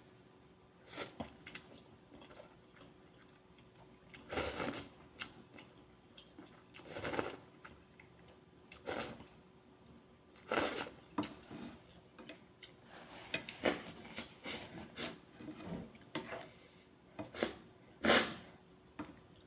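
Someone eating spicy noodle hot pot close to the microphone: short breathy bursts of about half a second every couple of seconds, with wet chewing and small sharp clicks between them.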